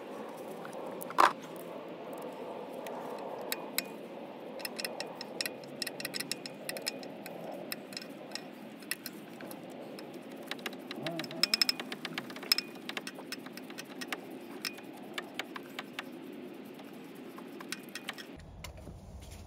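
Scattered light metallic clicks and rattles of a jubilee hose clip being worked along and tightened on a rubber coolant hose. There is one louder click about a second in and a dense run of clicks through the middle.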